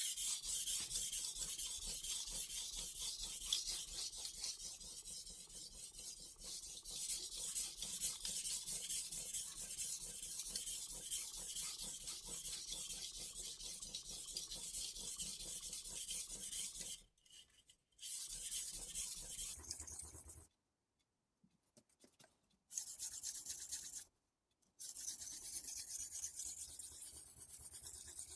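Steel blade of a Global G-48 santoku knife stroked back and forth on the wet 1000-grit side of a Chroma soaking whetstone, a steady scraping rasp. It stops briefly three times in the second half.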